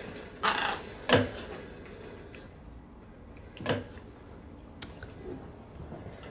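A few sparse handling sounds from a small glass medicine bottle: short knocks and a light clink as an elderly woman takes it up and swigs from it, with a breath early on, and quiet room tone between.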